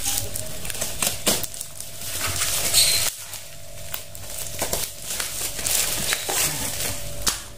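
Plastic wrapping and packing tape being torn and crinkled open by hand, in irregular crackles and rustles.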